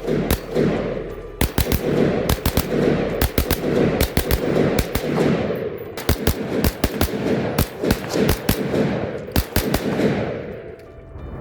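Handgun fire: many shots in quick strings of two to four, spread through the whole stretch, each with a short echoing tail. It thins out and dies away near the end.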